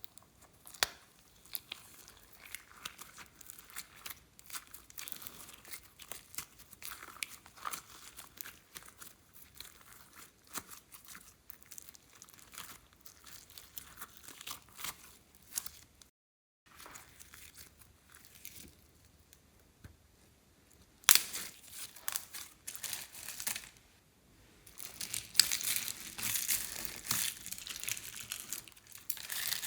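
Slime being squished and stretched, with sticky crackling and many small popping clicks. There is a sharp louder pop about 21 seconds in, and the crackling grows denser from about 25 seconds.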